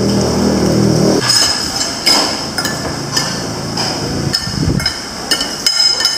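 Spoon and fork knocking and clinking against a ceramic plate, a string of separate sharp taps and scrapes.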